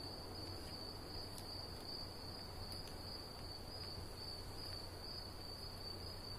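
Crickets trilling steadily: one continuous, unbroken high-pitched tone.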